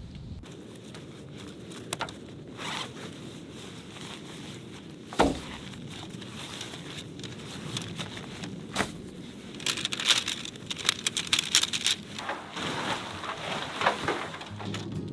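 Camping gear being handled while a campsite is set up: scattered clicks, knocks and scrapes, with a run of rapid zipper-like rasping between about ten and twelve seconds in. Underneath is a steady low rush of strong wind.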